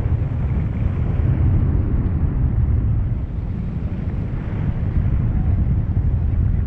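Airflow buffeting the microphone of a camera held out on a selfie stick during tandem paraglider flight: a loud, steady, deep rumble of wind noise.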